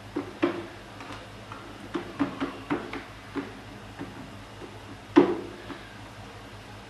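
Light knocks and taps of a baking tray on a marble worktop as hands press and spread dough into it, a quick cluster in the middle and one louder knock about five seconds in.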